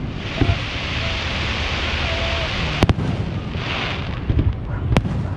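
Aerial fireworks shells bursting overhead. A loud hiss runs through the first three seconds and swells again briefly. A sharp double bang comes about three seconds in, and another bang near the end.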